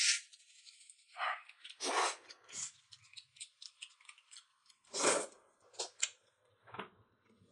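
Noodles being slurped and chewed, with short loud slurps about one, two and five seconds in and small wet chewing clicks between.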